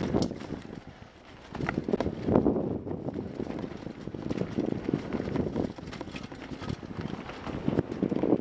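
Mountain bike riding down rough dirt singletrack: a fast, irregular clatter of the bike's frame, chain and tyres over roots and rocks, swelling and easing with the terrain.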